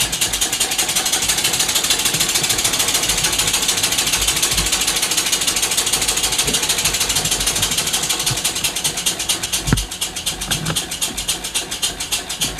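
Handmade scale-model steam engine running on compressed air, its exhaust puffing in a fast, even rhythm. It gets quieter and slower about ten seconds in, throttled back toward its lowest running speed.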